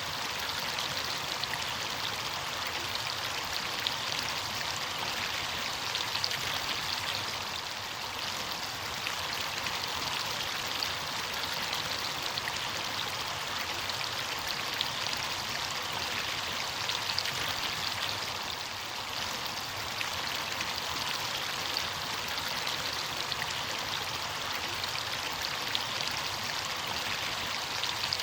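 Running water of a stream or small waterfall: a steady rushing and splashing that does not let up.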